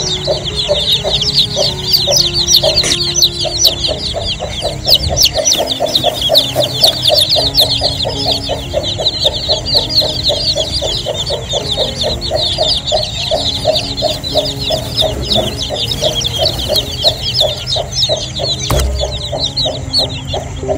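A brood of newly hatched chicks peeping continuously, many high, short peeps overlapping, over a hen clucking in a quick, steady rhythm.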